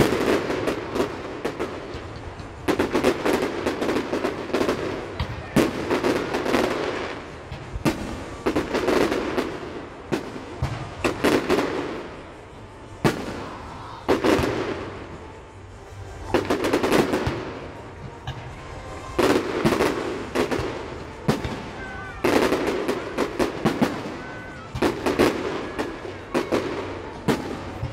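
Fireworks display: aerial shells bursting in volleys of sharp bangs and crackling, a cluster every two to three seconds, each echoing after it.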